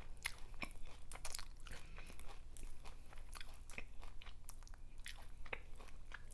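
Close-miked eating sounds of a person chewing seafood: wet chewing, lip smacks and a steady run of quick, irregular clicks.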